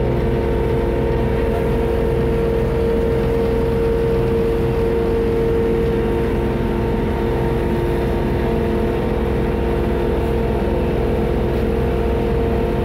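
Friendship Boat passenger launch's engine running steadily while under way: a constant drone that holds one pitch.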